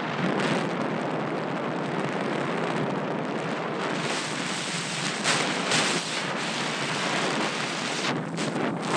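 Wind rushing over a helmet camera's microphone under a parachute canopy, a steady rush with a few louder gusts in the second half.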